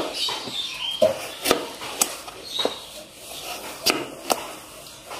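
A kitchen knife slicing a peeled raw potato into rounds, the blade knocking onto a plastic cutting board with each cut. About seven sharp knocks come at uneven intervals, with a pause near the middle.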